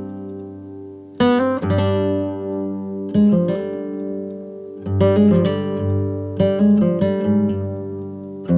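Background music played on acoustic guitar: plucked notes and strummed chords that ring on between strokes.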